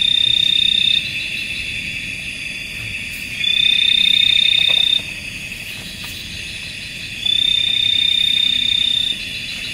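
Night chorus of frogs and insects calling steadily, with one loud, high, held call that rises slightly at its start. Each call lasts about a second and a half, and it repeats three times, every three to four seconds.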